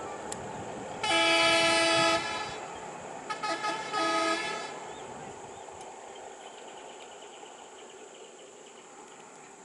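A vehicle horn sounds one blast of about a second, then two quick short toots and another half-second blast. The horn is steady in pitch.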